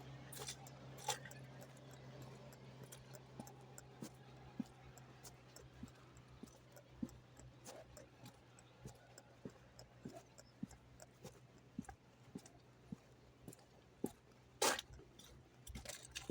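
Faint, irregular clicks and knocks over a steady low hum, with a louder rustling, scraping burst near the end.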